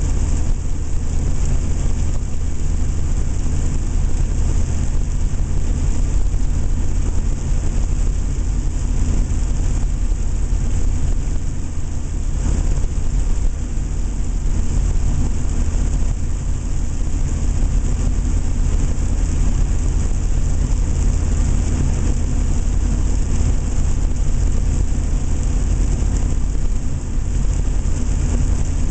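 A 7.3-litre Power Stroke turbo-diesel running steadily under way, with a low engine drone, road noise and turbo whistle, echoing inside a tunnel.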